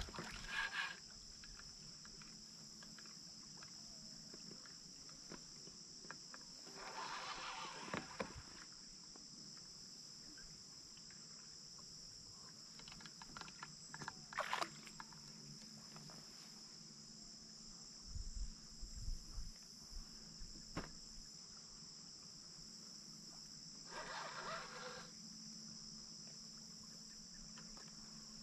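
Faint, steady, high-pitched chorus of insects, with a few short bursts of noise at intervals.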